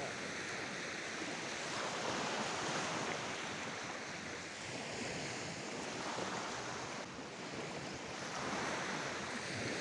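Surf washing onto a sandy beach, swelling and easing every few seconds, with wind on the microphone.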